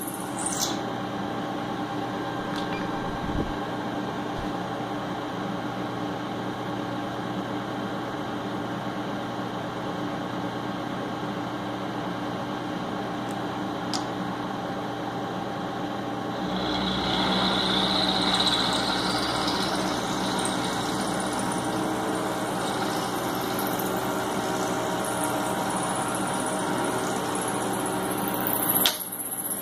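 Milling machine running steadily, its motor and spindle drive humming with several steady tones. About sixteen seconds in the sound grows louder and rougher, with added hiss and a low rumble, and stays so until near the end.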